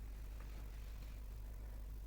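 Quiet background: a faint steady low hum with light hiss, the room tone of the recording.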